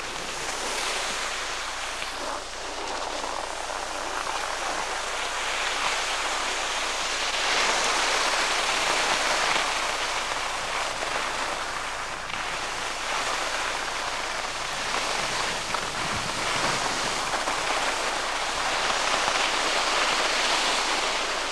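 Steady rushing noise of skiing: wind across the camcorder microphone and skis sliding on packed snow. It swells and eases a little without a break.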